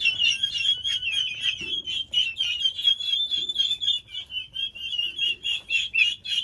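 A flock of Bourbon Red and Narragansett turkey poults, about six weeks old, peeping and chattering together: many short, high-pitched calls overlapping without a break.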